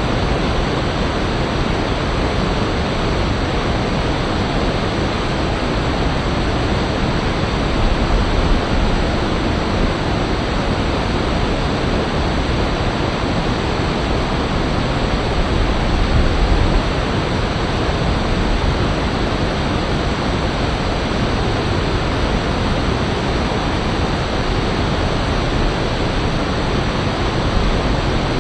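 Rushing river water running fast over rocks: a loud, steady rush of white-water noise, swelling slightly a couple of times.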